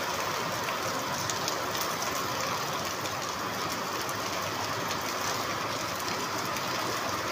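Heavy rain falling, a steady even hiss that does not change.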